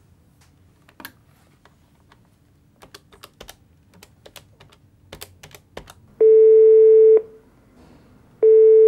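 Buttons of a push-button desk telephone clicking as a number is dialled, about ten key presses, then the ringing tone of the call: two loud steady beeps, each about a second long, about two seconds apart.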